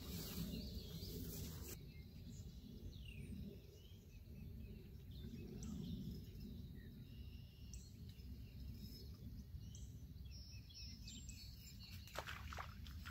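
Quiet outdoor pond-side ambience: scattered faint bird chirps over a steady low rumble, with a few short knocks near the end.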